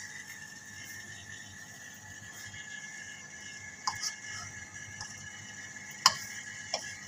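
A bread slice frying in ghee in a pan, with a steady faint sizzle. A slotted steel spoon knocks against the pan four times: twice around four seconds in, with the loudest clink about six seconds in and a last one shortly after.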